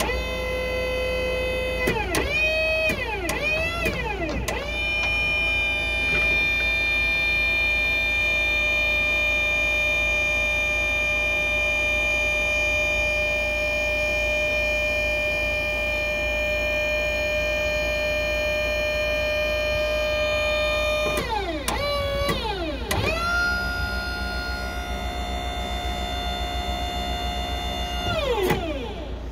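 Hydraulic pump of a HIAB 008 truck-mounted crane whining steadily as the boom is worked. Its pitch drops and swoops back up sharply each time the control valves take load: several times in the first few seconds, again a little past two-thirds of the way through, and once near the end. A steady low hum runs underneath.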